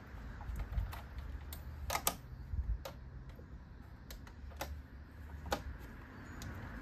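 Scattered sharp clicks and taps, about seven of them, from hands working at a two-stroke outboard racing engine that is not running, over a low steady rumble.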